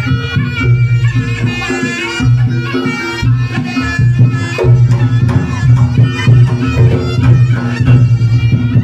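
Reog Ponorogo gamelan music: a reedy shawm (slompret) plays a wavering melody over drums and steady low gong tones.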